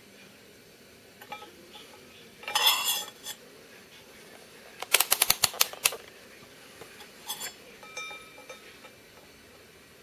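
Small hard objects being handled, with metal clinks. A short scrape comes first, then a quick run of about eight sharp clicks, then a few lighter clicks with a brief ring near the end.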